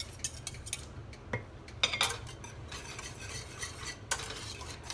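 Metal utensils stirring barbecue sauce in a stainless steel saucepan, clinking and scraping against the pan. There are a few sharp clinks, the loudest about two seconds in, and then a steady scraping swish.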